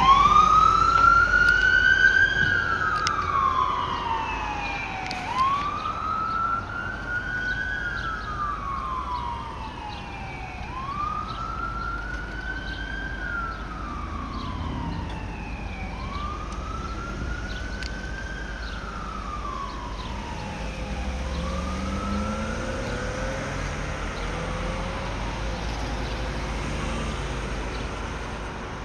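Emergency vehicle siren on a slow wail, from an AMR ambulance-service Ford Expedition running with lights. Each rise and fall takes about five seconds. The siren fades as the vehicle pulls away and dies out about two-thirds of the way in, leaving street traffic noise.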